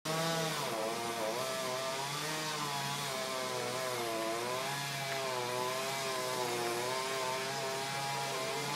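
Chainsaw engine running continuously, its speed rising and falling as it works.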